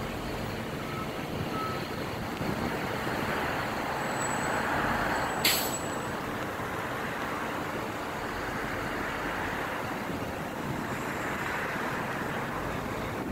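Wind buffeting the microphone over steady traffic noise from the road, with a brief sharp hiss about five and a half seconds in.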